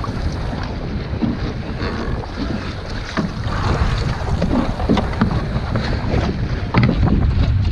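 Strong wind buffeting the microphone in a steady low rumble, with water slapping and splashing against a small wooden boat's hull in quick, irregular strokes.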